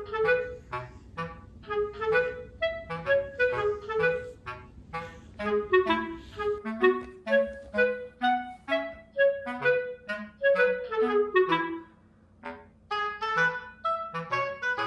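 Light, bouncy background music of short, quick notes over a simple bass line, with a brief break about twelve seconds in.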